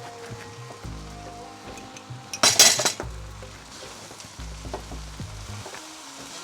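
Chicken Hakka noodles sizzling in a hot pan while being stirred and tossed with utensils. There is one loud burst of sizzling and clatter about two and a half seconds in.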